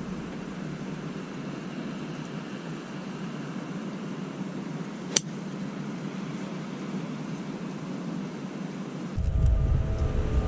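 Steady, even background noise like a fan or air conditioning, with one sharp click about five seconds in. About nine seconds in, a louder low rumble starts.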